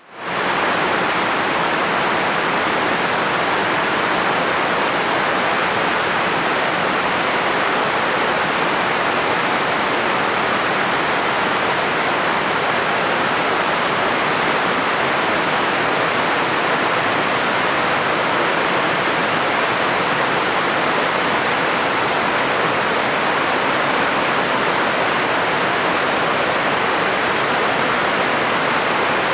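Tropical rain falling steadily, an even hiss with no breaks or distinct drops.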